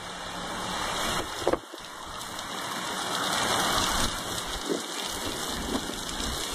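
Hurricane wind and heavy rain, a steady rush of noise that swells in a gust toward the middle, with a brief knock about one and a half seconds in.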